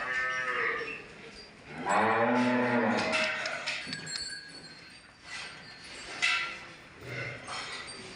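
A cow moos once, loudly, for about a second, starting about two seconds in. A short sharp clank follows near the end.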